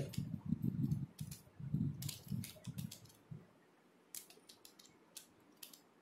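Plastic layers of an MF8 3x4x5 cuboid puzzle being turned by hand: a quick run of clicks and rattles, thinning to a few scattered clicks after about three and a half seconds.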